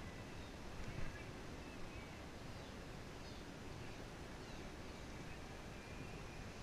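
Steady faint noise of riding a Segway outdoors, with a few faint bird chirps and a light bump about a second in.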